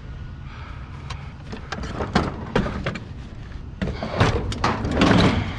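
Heavy scrap being wrestled into place on a truck: scattered metal knocks and clanks, rising to a louder stretch of clattering and scraping near the end, over a steady low hum.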